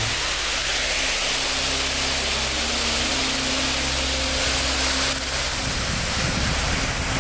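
Steady rush of falling water, a dense even hiss, from a small waterfall or cascade over a stone structure.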